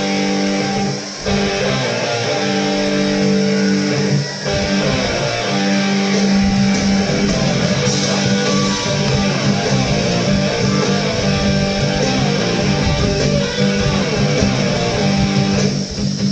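Background music: a blues song's guitar intro, plucked and strummed electric guitar with bass, steady and loud.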